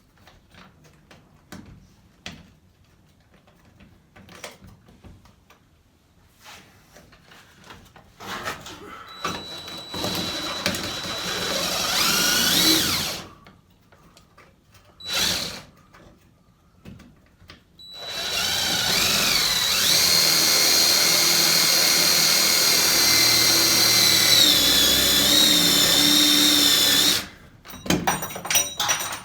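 Handheld power drill driving screws to fix trim brackets. After a few seconds of small handling clicks there is a short run with a rising whine, a brief burst, then a long steady run whose pitch sags near the end as the screw bites.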